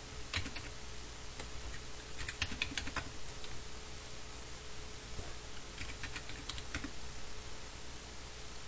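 Computer keyboard keys typed in three short bursts of quick clicks, numbers being entered.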